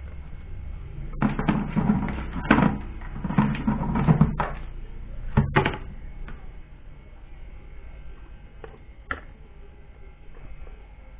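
Homemade spinner dryer driven by a blender motor, running with a steady hum while the rig rattles and knocks, loudest with clatter for about five seconds from a second in.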